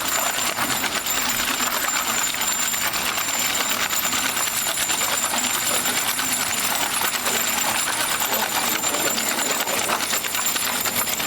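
Ball-bearing wheels of a firewood-laden cart rolling on pavement: a steady, loud, rapid metallic rattle and grind.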